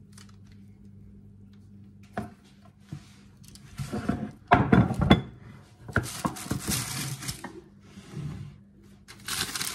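Metal baking tray and wooden board knocking and clattering as a baked loaf is turned out of the tray onto the board, the loudest knocks about halfway through. Baking paper rustles afterwards, twice.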